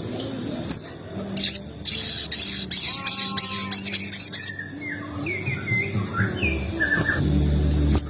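Sogon birds calling: a run of rapid, high chirps, then a few short whistled notes, over a low steady hum.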